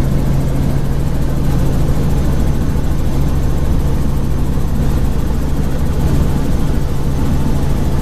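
Helicopter in flight: a steady drone of engine and rotor with a constant low hum.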